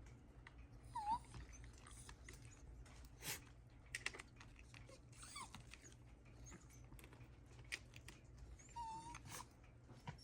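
Shiba Inu whining in short, high whimpers, three of them, the first the loudest, with a few faint clicks in between.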